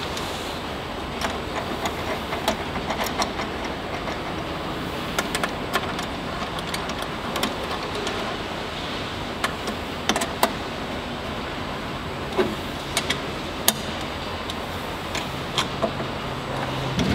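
Light metallic clicks and taps, scattered irregularly, as stainless-steel tri-clamp fittings and parts of a piston filler are handled and clamped up by hand, over a steady background hiss.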